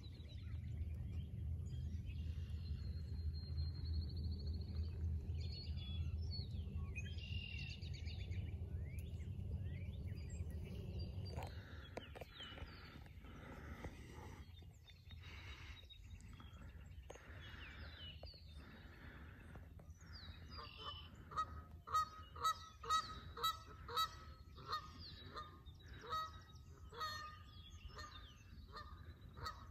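Canada geese honking: a run of sharp, evenly repeated honks, about two a second, starting about twenty seconds in. Before that, a low rumble with a few faint small-bird chirps.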